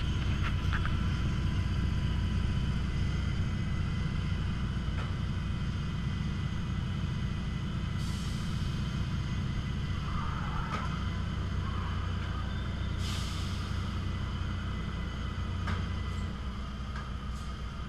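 Small dragster engine running at low speed, a steady low rumble, with two short hisses about eight and thirteen seconds in.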